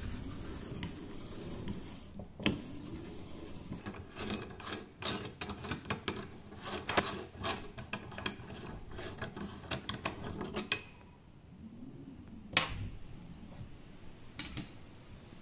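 Hand-cranked aluminium meat grinder grinding crunchy chocolate candy into crumbs, a gritty rasping. This gives way to a dense run of sharp metal clicks and scrapes as the grinder head is handled, with two single knocks near the end.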